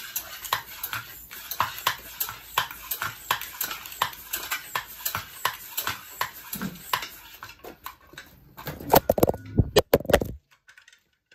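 Floor pump worked in quick, even strokes, about three a second, inflating a bicycle tyre. A few louder knocks come about nine seconds in, and then it stops.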